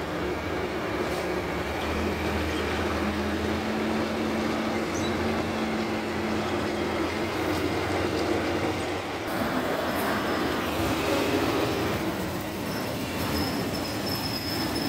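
Heil Half Pack Odyssey front-loader garbage truck running: a steady diesel engine and drivetrain hum, with a thin high squeal near the end.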